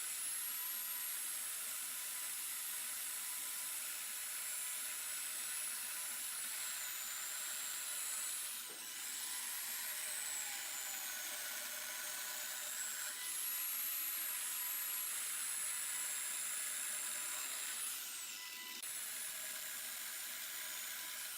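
High-pitched power-tool whine over a steady cutting hiss. The pitch sags and recovers several times as the load changes, with brief breaks about a third of the way in and again near the end.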